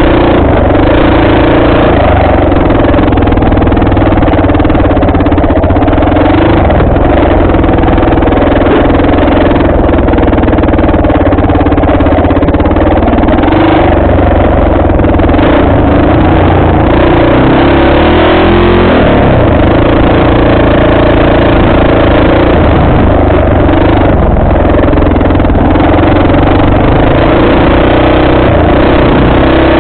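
Off-road motorcycle engine running loud and steady under way on a dirt trail. About two-thirds of the way through, its note drops and then climbs again as the throttle is eased and reopened.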